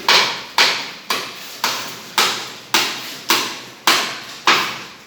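A rapid fit of harsh, sharp coughs, nine in an even rhythm of about two a second, each a short noisy burst that fades quickly.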